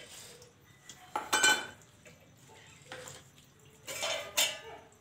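Steel pot lid and utensils clanking against a steel pot of tea on a small stove: a few sharp metallic clatters with a brief ring, the loudest about a second and a half in and again about four seconds in.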